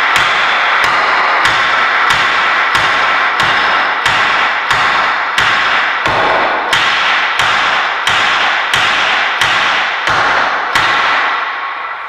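Steady hammer blows, about three every two seconds, driving a Gorilla-tape-wrapped inner pipe into a metal antenna mast pipe. Each blow sets the pipes ringing. The blows stop near the end and the ring fades out.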